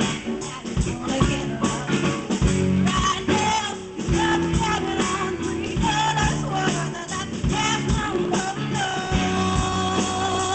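Live rock band: a woman singing lead over guitar and a drum kit playing a steady beat.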